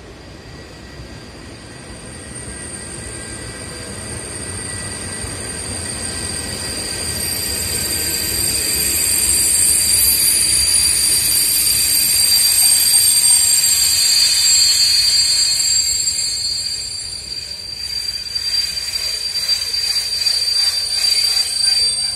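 Passenger train of coaches rolling into the station and slowing to a stop, with a steady high squeal from brakes and wheels. The squeal grows louder, is loudest from about ten seconds in, then dips and returns before cutting off at the end.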